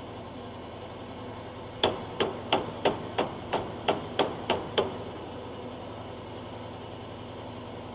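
Ten sharp hammer blows on a corrugated asbestos-cement roof, about three a second, each with a slight ring. They start about two seconds in and stop about a second and a half later.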